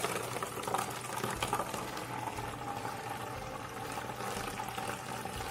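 A thin stream of liquid pouring steadily through a plastic funnel into a plastic bottle as the bottle fills.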